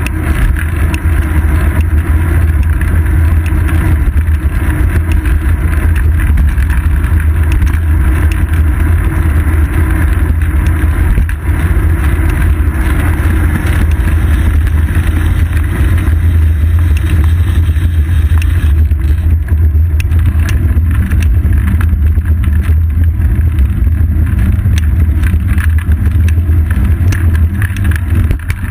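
Steady, loud low rumble of wind and road vibration picked up by a seat-post-mounted action camera on a moving bicycle, with frequent small ticks and rattles throughout.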